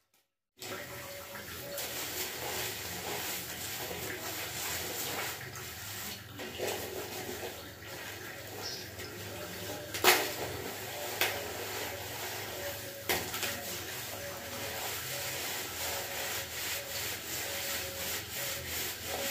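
Wet, shampoo-lathered long hair squelching and rubbing as it is squeezed and worked between the hands and massaged at the scalp, with a sharp click about ten seconds in. It starts after about half a second of near silence.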